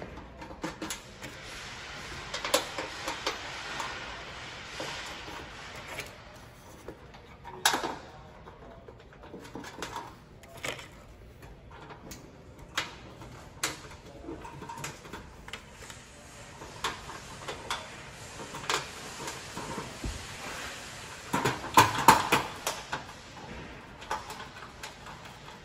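Light clicks, taps and scrapes of screws being started by hand into the sheet-metal sidewall panel of a gas grill cabinet, the thin panel knocking now and then. A louder clatter of knocks comes late on.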